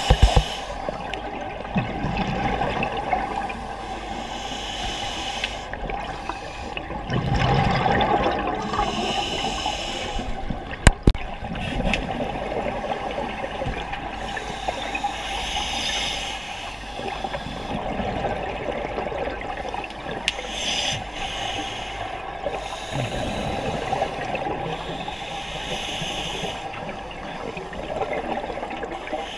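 Scuba diver breathing through a regulator underwater: a hiss on each breath and a rush of exhaled bubbles that recur every few seconds, over a steady watery rumble. There is a sharp click about eleven seconds in.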